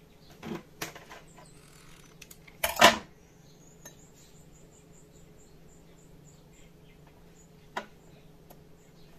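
Glass candle jar knocked and handled on a cutting mat while a wick is pressed onto its bottom with hot glue: a few light knocks early, a sharp glassy clatter just before three seconds in, and one tap near the end.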